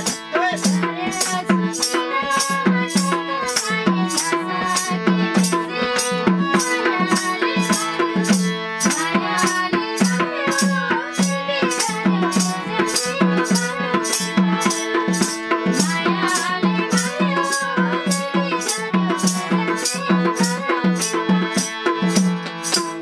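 Instrumental interlude of Nepali dohori folk music: a harmonium holding a melody over held notes, with a madal drum and a tambourine jingling on a steady beat of about two strokes a second.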